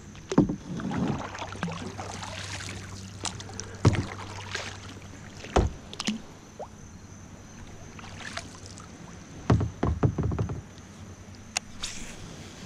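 Kayak paddling: the paddle blades dip and splash through the water, with several sharp knocks, the loudest cluster about ten seconds in.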